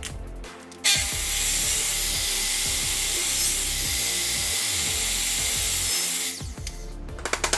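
A power tool runs steadily for about five seconds, starting suddenly about a second in, with a loud hissing noise. Background music plays under it.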